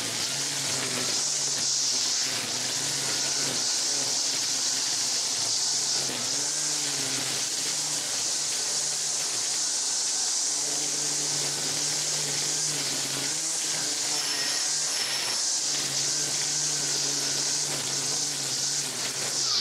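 Stihl FSA 135 R battery string trimmer running steadily on its lowest speed setting, its line cutting through tall weeds. A steady high hiss sits over a low electric-motor hum, dipping slightly now and then.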